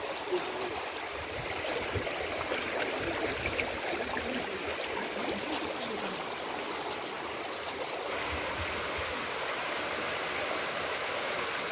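Muddy floodwater rushing down a street after a sudden heavy rain, a steady rushing and gurgling, a little louder in the last few seconds.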